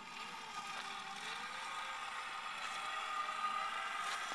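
Zip line trolley's pulley wheels rolling along the steel cable under a rider, a steady whirring whine that grows slightly louder as he picks up speed.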